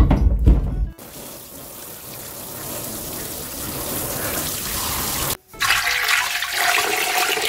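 Hot water splashing heavily into a stainless steel kitchen sink as a pot is drained, then a kitchen tap running steadily over pork trotters being rinsed by hand. It cuts off abruptly about five seconds in, and water is then poured into an aluminium pressure cooker over the trotters.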